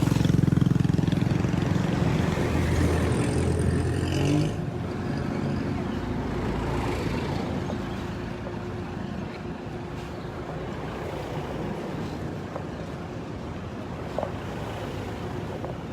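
A motor vehicle's engine passing close by, loud for the first four seconds or so and then dying away, leaving a steady, quieter rumble of traffic and outdoor noise.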